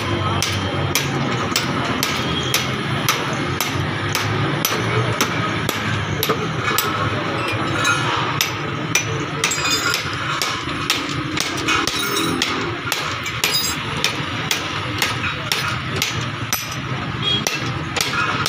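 Repeated hammer strikes, about two a second and fairly regular, over a steady background noise.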